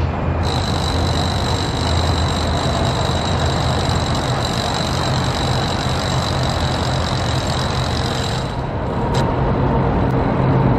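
Steady outdoor traffic and engine noise with a low, continuous hum, joined by a faint high-pitched whine that stops about eight seconds in.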